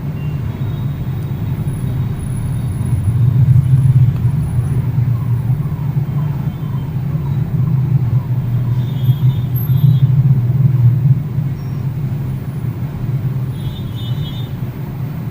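A steady low rumble, with faint brief high tones twice near the end.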